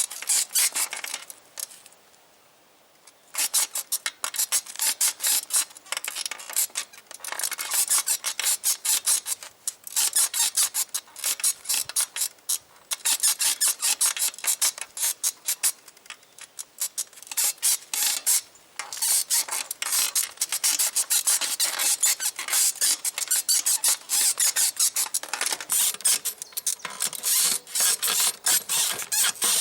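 Springs of a 1970s sprung bicycle saddle squeaking in rapid, rhythmic runs as weight bounces on it. The runs stop briefly about two seconds in and again a few times later.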